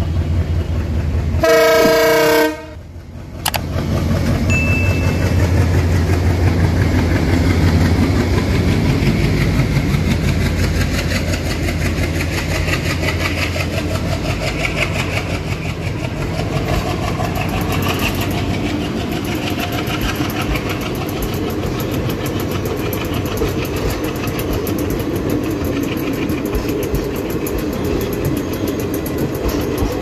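Indian Railways WDM-class diesel locomotive sounding its horn in one loud blast about two seconds in, then passing with its engine chugging. The passenger coaches follow, rolling by with a steady rumble and clickety-clack of wheels over the rail joints.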